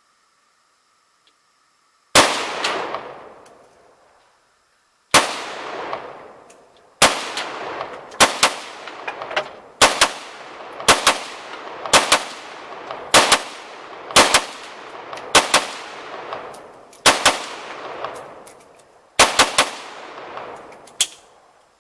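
Gunshots from a semi-automatic firearm: a single shot, a pause of about three seconds, then a steady string of shots about one a second. Each shot rings out with a long echo.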